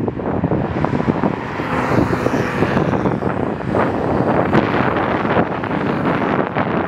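Cars driving past on a race track, engines running at speed, with heavy wind noise on the microphone.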